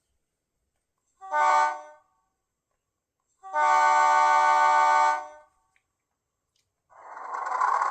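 Sound-decoder horn of an HO-scale SAR 900 class diesel locomotive, played through the model's small speaker: one short blast, then one longer blast, each a steady multi-note chord. A rushing noise starts near the end.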